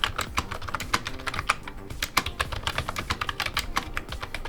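Typing on a cheap rubber-dome membrane keyboard: an uneven run of key presses, several a second.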